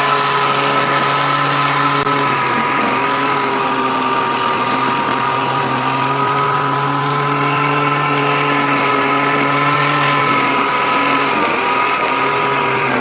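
String trimmer (a trimmer-and-mower combo) running at full speed, cutting through tall grass with a steady motor whine. The pitch sags briefly twice, once early and once near the end, as the line meets thicker grass.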